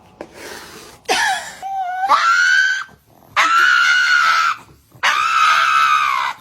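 A cat yowling in three long, high-pitched screams, the first rising in pitch partway through.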